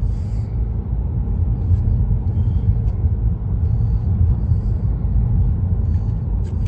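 Steady low rumble of a vehicle on the road, heard from inside the cabin.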